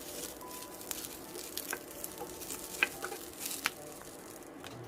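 Ginkgo nuts roasting in a little cooking oil in a frying pan: a steady sizzle with a few scattered sharp clicks.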